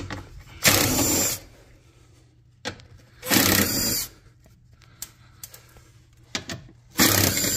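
Cordless power drill run in three short bursts of under a second each, about three seconds apart, as on screws in the Jeep's underbody.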